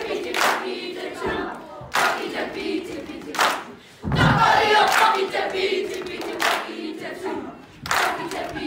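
Children's voices chanting loudly in unison in te reo Māori, a haka-style action chant, punctuated by sharp claps and chest slaps about every one and a half seconds.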